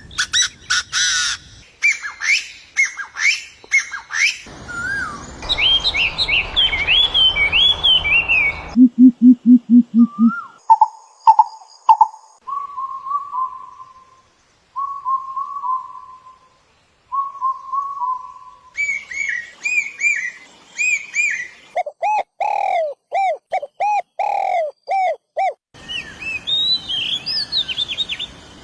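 A succession of different bird calls, changing abruptly several times: quick high chirps, a short run of low rapid notes, spaced whistled notes, then looping calls and more chirps.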